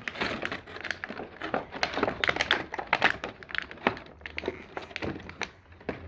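Plastic toy packaging being handled and opened, with crinkling and a dense run of small clicks and taps.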